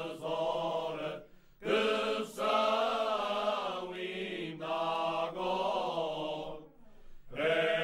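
Group of men singing Cante Alentejano unaccompanied, in slow, long-held phrases. Short pauses about a second and a half in and again near the end separate the phrases.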